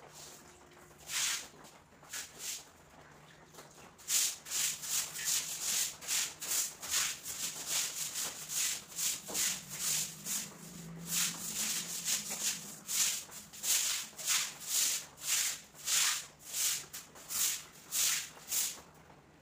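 Broom swishing and scrubbing across a wet floor in quick repeated strokes: a few at first, then about two strokes a second.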